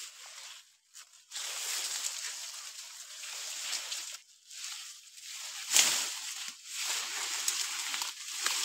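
Dry sugarcane leaves and stalks rustling and crackling as a sugarcane stalk is pulled and broken off by hand, with one louder sharp crack about six seconds in.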